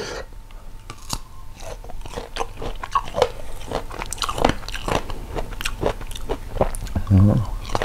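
Close-up biting and chewing of crisp, unripe sour fruit coated in chili salt: repeated crunches and wet mouth sounds. A brief hum near the end.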